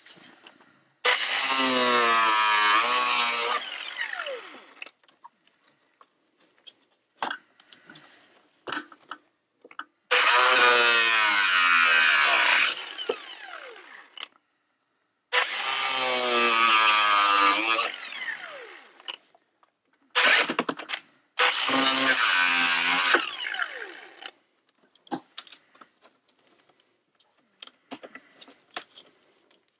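Handheld power saw cutting into the plastic bumper cover in four bursts of about two to three seconds each, its pitch dropping as the blade bites. Between the cuts come short clicks and rattles of the plastic and tool being handled.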